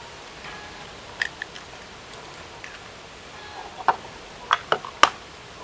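Eggshells being cracked on the edge of a bowl: a couple of sharp taps about a second in, then a quicker run of cracks and taps near the end, over a steady low hiss.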